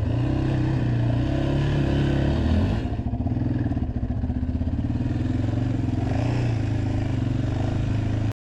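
Yamaha Raptor 700 ATV's single-cylinder four-stroke engine running while the quad is ridden, with small changes in throttle, cutting off suddenly near the end.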